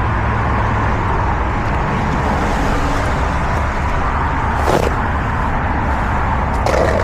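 Steady road noise from vehicles passing in traffic, with two short sharp knocks in the second half.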